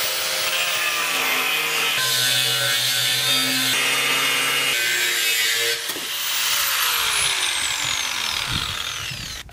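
Angle grinder with an abrasive cut-off wheel cutting through 1/4-inch steel plate, a loud, steady grinding of disc on steel that shifts in pitch as the load changes. About six seconds in, the motor's whine starts to fall as it winds down, and the cutting sound dies away near the end.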